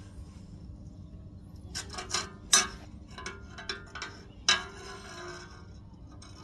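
Metal pieces knocking and clinking together, a run of sharp strikes with a short metallic ring, the two loudest about two seconds apart in the middle.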